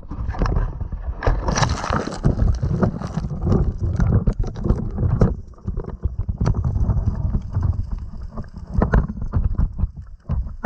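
Muffled, dull sound of many irregular knocks and bumps over a low rumble, the high end cut off, as picked up by an underwater camera rig's own microphone while it is handled and lowered into the water.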